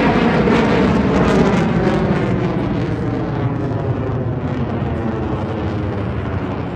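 Fighter jet flying overhead, a loud rushing jet-engine noise that slowly fades over the last few seconds as the aircraft draws away.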